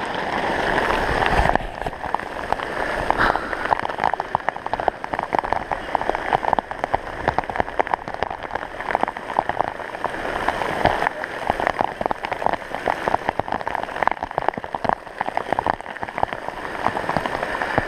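Heavy rain falling: a steady hiss packed with many sharp ticks of drops striking close to the microphone.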